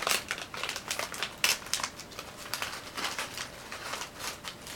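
Crinkly snack chip bag being opened and handled by hand, making quick irregular crackles and rustles.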